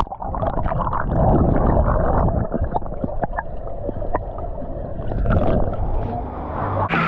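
Water gurgling and sloshing, dull and muffled, with scattered small knocks and splashes.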